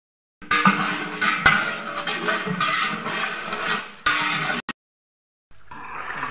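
Long metal ladle scraping and clanking against the inside of a large aluminium cooking pot while stirring sliced onions frying in oil. The pot rings steadily under the scrapes and knocks. The sound cuts off sharply about four and a half seconds in.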